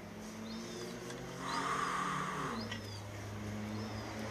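A bird repeating a short high chirp about once a second, over a steady low hum.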